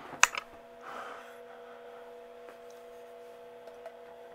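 Steady electrical hum from the powered Lionel toy-train layout while the train stands stalled by a slight derailment. A sharp click comes about a quarter second in, followed by a few faint ticks.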